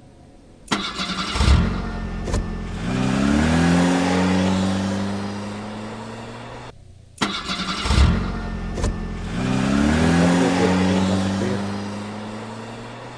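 Toyota Kijang engine starting: a thump as it cranks, then it catches and revs up in a rising note and settles into a steady run. It stops abruptly, and the same start is heard a second time.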